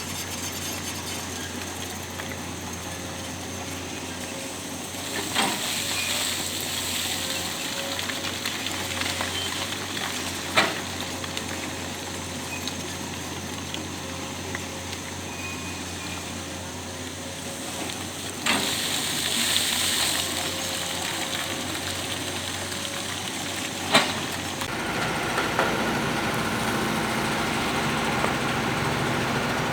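Construction machinery running: a steady engine noise with a hiss over it and a faint steady hum, broken by four sharp knocks. About 25 seconds in, the sound changes to a fuller, lower engine noise.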